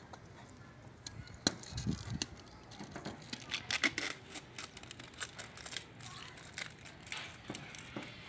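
Handling noises: a string of light clicks, taps and rustles as a new spin-on oil filter and a plastic oil bottle are picked up, wiped with a cloth rag and set down on a sheet-metal tray.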